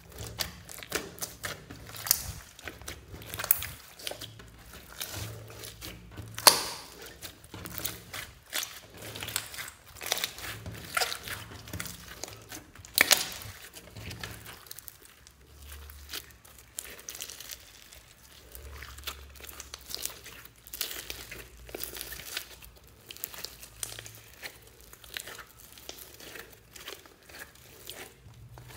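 Hands squeezing and kneading a large lump of glossy, glitter-filled slime with clay mixed in, giving irregular crackles and pops as the air pockets burst.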